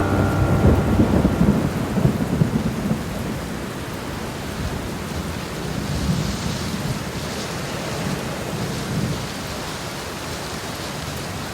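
Steady rain falling, with a low rumble of thunder in the first three seconds or so.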